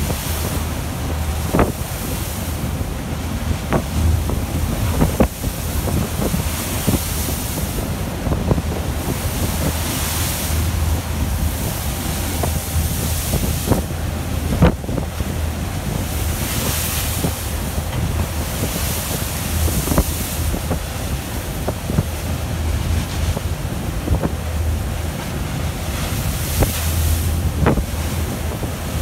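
Storm at sea heard from aboard a vessel: gusting wind buffeting the microphone and breaking waves rushing and crashing, surging and easing every few seconds. Underneath runs a steady low hum, with a few brief sharp clicks now and then.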